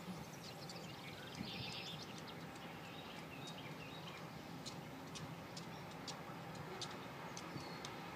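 Songbirds chirping in short, high calls scattered throughout, with a denser burst of song about one and a half seconds in, over a faint, steady low hum.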